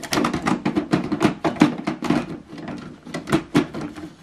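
An HP 142A toner cartridge being pushed into an HP LaserJet M140w printer: a quick, irregular run of plastic clicks and knocks as it slides into place.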